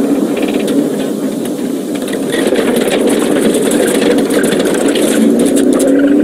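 A vehicle's engine and road noise, a steady dense rumble.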